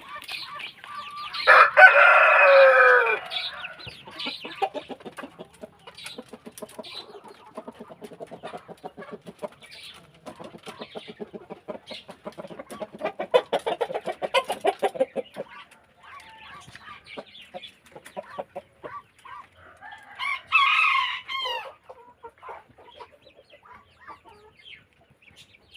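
Ayam kampung (native village chickens) in a coop: a rooster crows loudly about two seconds in, hens cluck in quick runs through the middle, and a shorter call comes about five seconds before the end.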